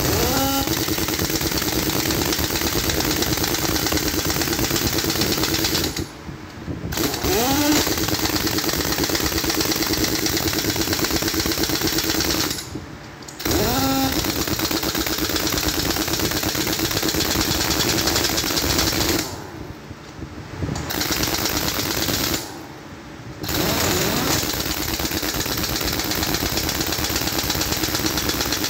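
Heavy-duty impact wrench with a long socket extension hammering on a truck's wheel lug nuts in several long runs. It stops briefly four times as it is moved from nut to nut, and some runs start with a short rising whine as the motor spins up.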